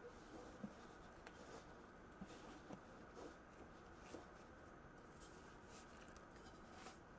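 Near silence with faint rustling and a few light taps and ticks: the Camp Chef Stryker stove pot in its fabric cozy being handled and lifted.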